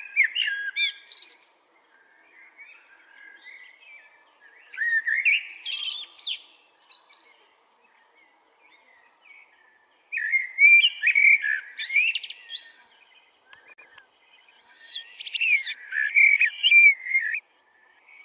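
A bird singing in four bursts of quick, varied whistled phrases, with short pauses between them. The bursts come near the start, about five seconds in, about ten seconds in and about fifteen seconds in.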